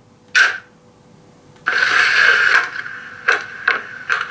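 H0 model diesel locomotive's digital sound decoder playing compressed-air hisses. There is one short puff, then a longer hiss about a second and a half in that fades away, then three short puffs near the end.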